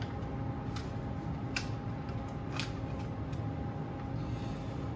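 Steady low hum of a commercial kitchen's extraction and lit gas burner, with a faint steady tone in it. A few faint light clicks sound over it.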